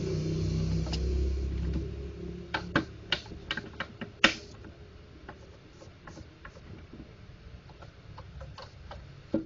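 Sharp plastic clicks and taps from a laser printer drum unit being handled as its charge roller (PCR) is refitted: a quick run of clicks a couple of seconds in, the loudest around four seconds, then occasional faint ticks. A low rumble underlies the first two seconds.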